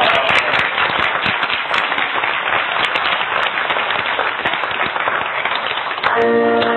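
Church congregation applauding for about six seconds. Near the end the clapping stops and music begins with held chords.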